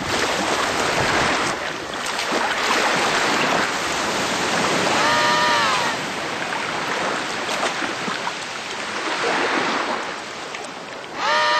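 Emperor penguins sliding on their bellies over snow and ice, a rushing, hissing scrape that swells and fades. A short call that rises and falls sounds about five seconds in and again at the very end.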